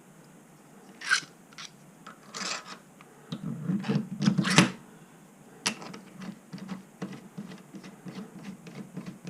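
Metal clicks, knocks and short scrapes of hand work on a lathe's quick change toolpost as it is fitted and adjusted. There is a louder cluster of knocks about four seconds in and a run of quick light ticks near the end.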